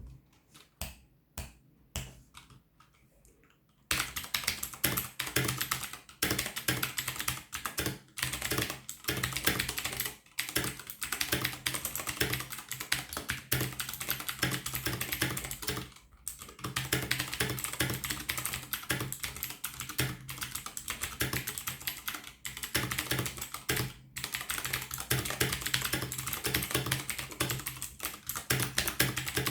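Typing on an ASUS ROG Claymore mechanical keyboard with clicky Cherry MX Blue switches on an aluminium plate. A few separate key taps come first, then fast continuous typing starts about four seconds in, with brief pauses every few seconds.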